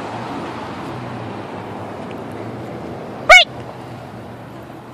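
A single short, loud animal call, rising and falling in pitch, about two-thirds of the way through, over steady road traffic noise.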